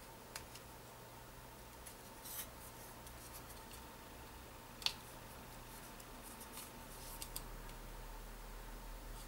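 Light clicks and scrapes from the black plastic housing and small parts of a РМГ-1 head demagnetizer being handled and fitted, with one sharper click about five seconds in, over a faint steady hum.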